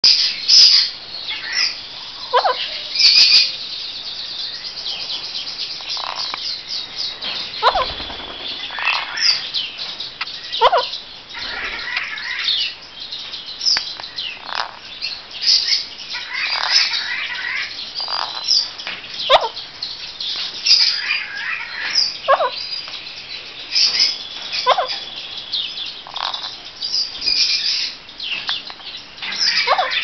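Caged Alexandrine parakeets calling: a steady run of loud squawks and chirps, several of them sharp calls that slide down in pitch, repeated every few seconds.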